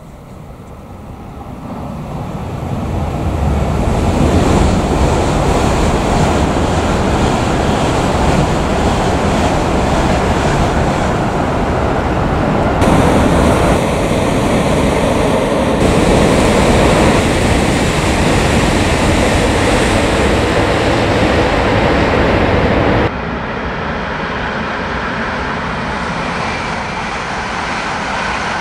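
E7-series Shinkansen passing at speed: a loud rush of wheels on rail and air that swells over the first few seconds and then holds. The sound changes abruptly three times, about 13, 16 and 23 seconds in.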